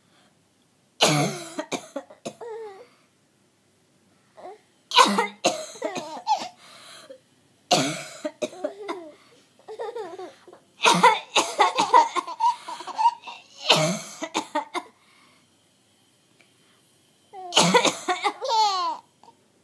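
A woman coughing in about six separate fits. Each fit is a quick run of several coughs, some with short voiced, pitched sounds that slide up and down.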